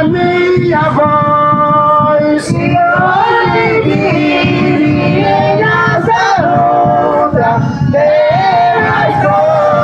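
A man singing a slow devotional hymn through a microphone and loudspeaker, holding long notes, with other voices singing along.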